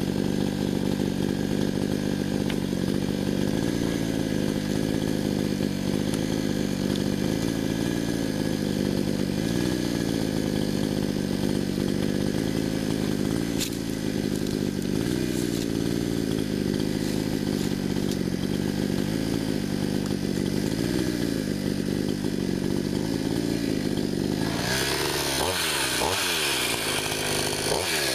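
Gasoline chainsaw running under load while cutting pecan rounds from a log, its engine pitch steady with a slight slow waver. Near the end, the pitch swings rapidly up and down as the revs change, and the sound turns brighter.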